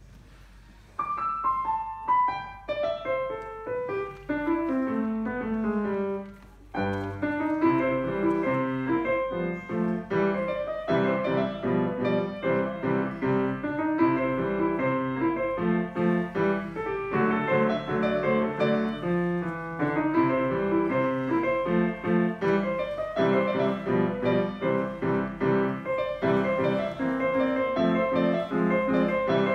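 Solo grand piano playing, starting about a second in with a line of notes stepping downward, then from about seven seconds a steady bouncing rhythm of low bass notes alternating with chords under a melody.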